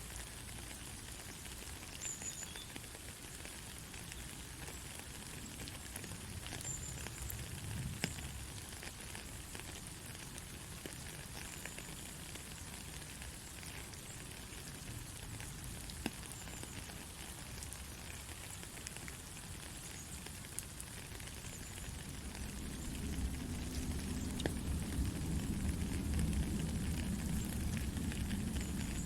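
Soft, steady rain: an even hiss of fine dripping and pattering drops. About two-thirds of the way through, a low rumble swells in beneath it and stays.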